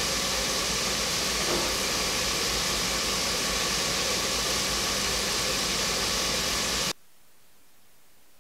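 A steady, even hiss with a low hum beneath it, which cuts off suddenly about seven seconds in, leaving only a much fainter hiss.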